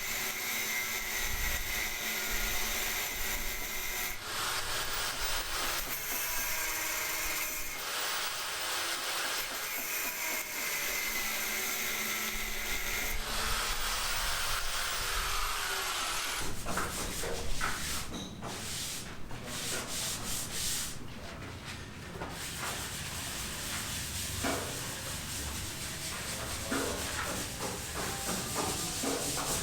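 Steady rubbing and scraping of hand or tool work, changing character abruptly several times.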